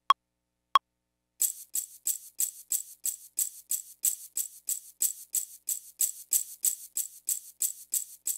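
Two metronome count-in clicks, then a bright, hissy percussion sample from a Maschine drum kit, triggered from the controller's pads and repeated evenly about three times a second as a MIDI part is recorded into Ableton Live.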